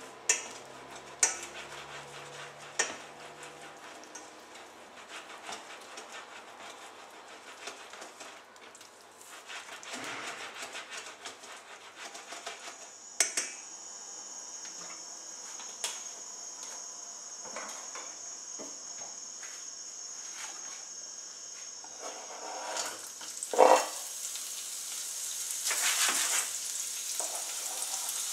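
Tongs clicking a few times against a saucepan where chicken pieces are cooking. Then hot oil sizzles steadily in a nonstick frying pan. A loud clatter about three-quarters of the way through marks carrot sticks going into the oil, and the frying sizzle grows louder after it.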